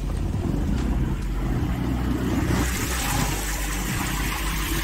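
A car engine running as the car drives slowly through shallow floodwater, with the water washing and swishing around it. The wash grows louder from about halfway through.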